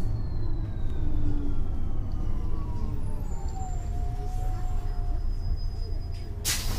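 Irisbus Cityclass Cursor CNG city bus standing with its Cursor 8 gas engine idling, a steady low rumble under a whine that slowly falls in pitch. A sudden loud hiss breaks in near the end.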